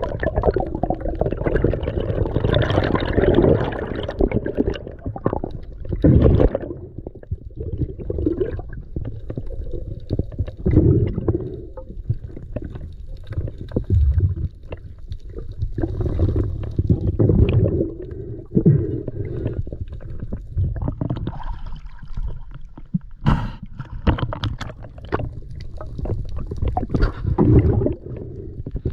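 Underwater sound heard through a diving camera: water rushing and rumbling in irregular surges, with gurgling bubbles and a few sharp clicks.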